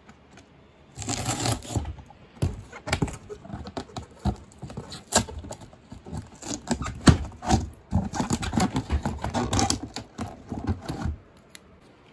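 Scissors slitting packing tape along the seams of a large cardboard box, with cardboard scraping and flaps being handled. It is a run of irregular scratchy rasps and sharp clicks.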